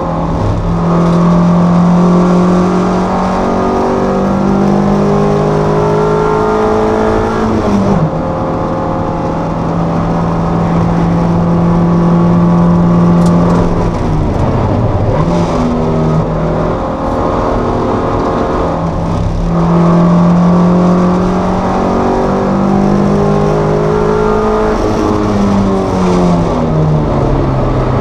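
Toyota MR2 race car's engine heard from inside the cockpit, running hard under racing load. Its pitch holds and climbs through long stretches, then falls in steps as the car brakes and changes down, clearly about a third of the way in, around halfway, and again near the end.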